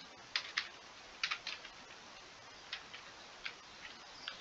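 Computer keyboard keys tapped as a few letters and a word are typed: short, light clicks, single or in quick pairs, at an uneven pace.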